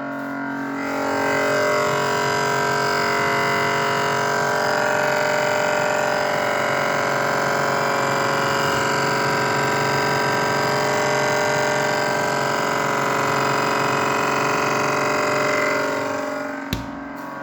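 Samsung inverter refrigerator's compressor running with a loud, droning hum of several steady tones over a rough buzz, the abnormal noise complained of. It swells about a second in and eases near the end, followed by a single sharp click.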